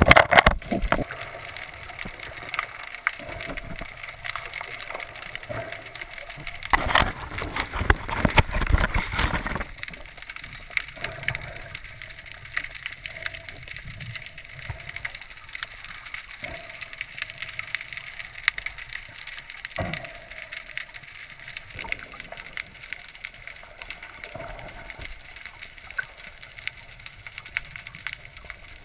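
Underwater sound picked up by a diver's camera: a fine, steady crackle of clicks, with loud rushes of bubbling right at the start and again for a couple of seconds about seven seconds in.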